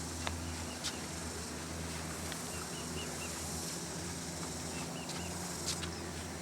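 Woodland ambience: two short runs of faint, high chirps, a few sharp clicks, and a steady low hum underneath.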